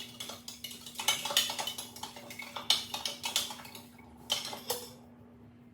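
Metal utensils clinking and scraping against dishes in quick clusters of clicks, dying away about five seconds in.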